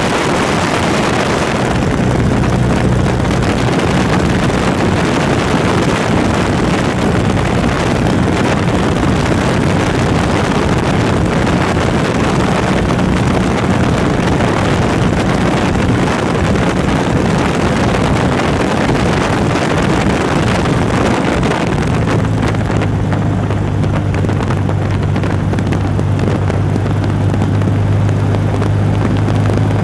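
Wind rushing through the open door and window of a small high-wing light aircraft in flight, over the steady drone of its piston engine. About two-thirds of the way through, the engine note drops lower and grows stronger while the wind hiss thins, a sign of a change in power setting.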